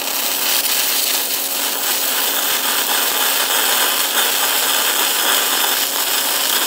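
Shielded metal arc (stick) welding with an E6010 electrode on steel pipe: a steady, loud crackling hiss as the arc burns in a tack weld.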